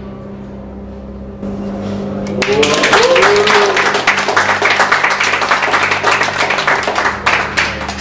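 Audience applauding at the reveal of a card trick, swelling in about two seconds in and dying down near the end, with a short cheer as it starts.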